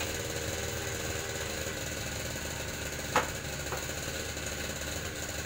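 A motorcycle engine running steadily in the background, a little noisy. About three seconds in there is one sharp click as the bench's bolts are being tightened.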